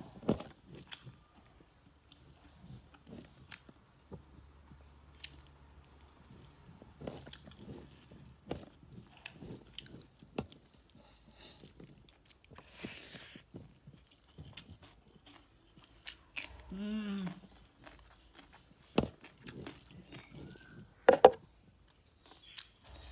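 A person chewing mouthfuls of rice and pork curry eaten by hand, with wet mouth clicks and lip smacks scattered throughout. A short hum from the eater comes about two-thirds of the way through, and a few sharp smacks sound loudest near the end.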